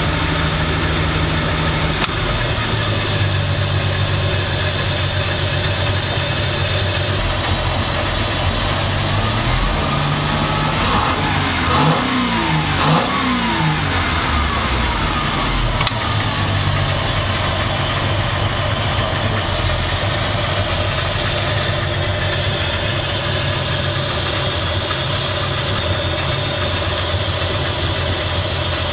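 Mercruiser 4.3-litre V6 sterndrive engine idling steadily, revved up and back down briefly around the middle before returning to idle.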